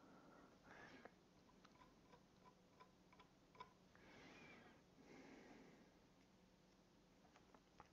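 Near silence: room tone with faint ticking, roughly twice a second, and a few soft sniffs.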